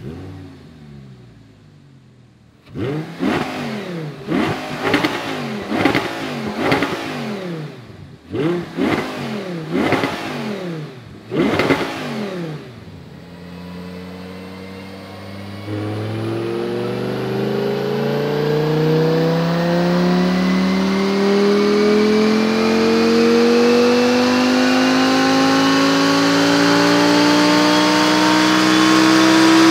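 Audi R8's 5.2-litre V10 on its stock exhaust, first blipped in a string of quick free revs, each rising and falling back. After a short idle it makes one long full-throttle pull on a chassis dyno, the engine note climbing steadily in pitch as the revs build toward the top of the range.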